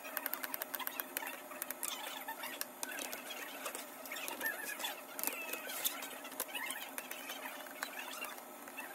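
Many quick clicks and scrapes of small screws and plastic clips as the bottom cover of a laptop is unscrewed and pried open, with short squeaky chirps among them.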